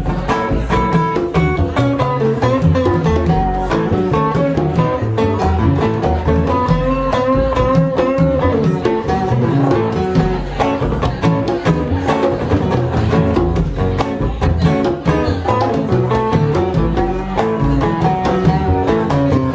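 Live band instrumental: a guitar plays a lead melody over congas and bass guitar, picked up by a camera's built-in microphone. About halfway through, a sustained note bends and wavers.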